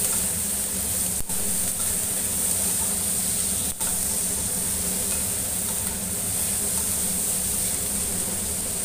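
Chopped onion, capsicum, green chillies and tomato sizzling in oil in an aluminium kadai while being stirred with a spatula. A steady hiss of frying.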